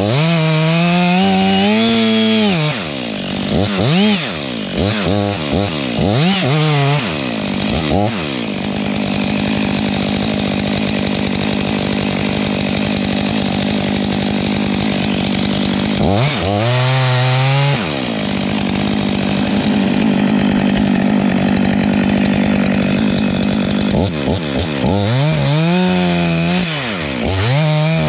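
STIHL MS 500i fuel-injected two-stroke chainsaw cutting into a tree trunk at full throttle. The engine drops off and revs back up several times in the first few seconds, once again in the middle, and several times near the end.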